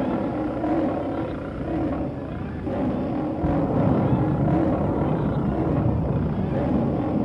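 Monster sound effect: a deep, animal-like roar over a low rumble, which gets louder about three and a half seconds in.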